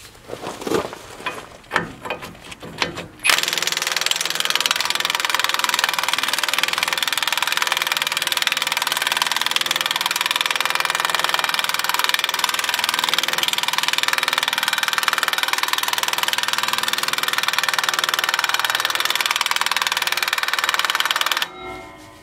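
Cordless impact wrench hammering without a break on a front suspension fastener, starting about three seconds in after a few handling clicks and cutting off suddenly near the end. The owner says the impact gun is not working as well as it should.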